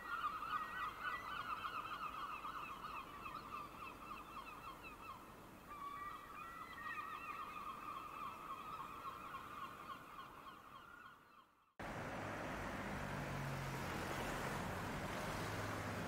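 A flock of gulls calling, many overlapping cries at once; about twelve seconds in it cuts off suddenly to steady street traffic noise.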